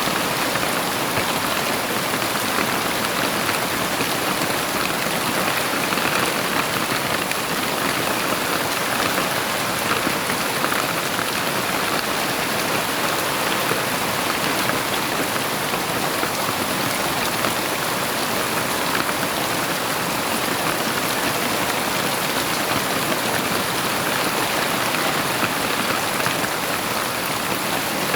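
Heavy rain falling steadily, a dense even hiss that holds without a break.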